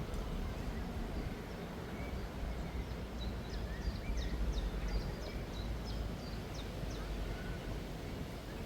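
Outdoor ambience: a steady low rumble of wind on the microphone, with a small bird chirping repeatedly in short high falling notes from about three to seven seconds in.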